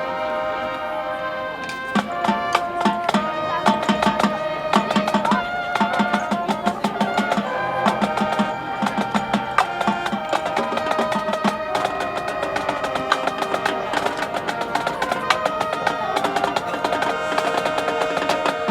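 High school marching band playing, with held chords from the horns and the drumline joining in about two seconds in with quick, crisp drum strokes.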